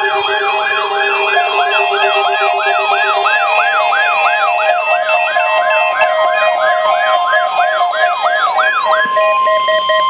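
Several NOAA weather radios sounding their alert alarms at once for a weekly test: a loud, fast whooping siren-like sweep, about three a second, over pulsing beeps and steady tones from the other receivers. The whooping stops about nine seconds in, leaving the beeps and a steady tone.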